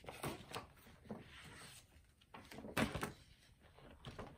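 Paper and cardboard rustling and knocking as items in a box are shuffled and handled, with one louder knock almost three seconds in.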